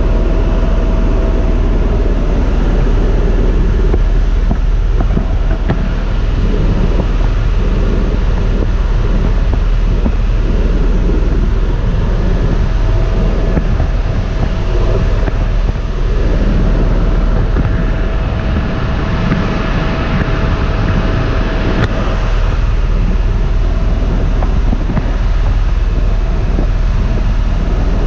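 Tour helicopter in cruise flight heard from inside the cabin: loud, steady rotor and turbine noise with a heavy low drone and a thin steady tone above it.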